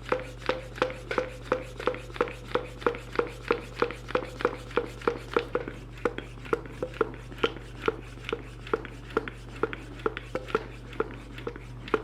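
Aluminium Pro Bike Tool mini hand pump being worked fast to inflate a road bike tire through a Presta valve: a quick, even run of short pump strokes, about three a second. In the first half each stroke carries a brief tone, which fades out later on.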